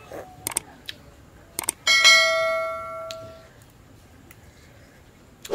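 Subscribe-button animation sound effect: a few quick mouse clicks, then a single bell ding that rings out and fades over about a second and a half.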